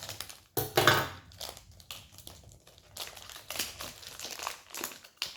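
Plastic wrapping crinkling and crumpling as a toy pack is handled and opened, in irregular crackles with a louder burst about a second in.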